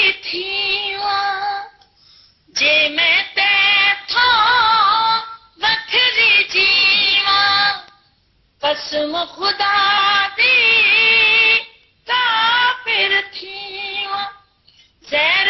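A woman singing a Punjabi song unaccompanied, in phrases of two to three seconds with ornamented, wavering pitch, each broken off by a short pause.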